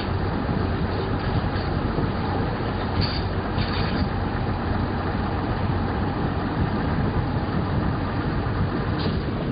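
Steady rumble of a passenger train running along the track, heard from inside the carriage. Brief hissing bursts come about three to four seconds in and again near the end.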